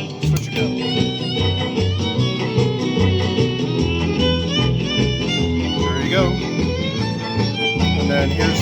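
Country music with fiddle, guitar and a steady bass line playing from an 8-track tape player, with a brief dip in the sound just after the start.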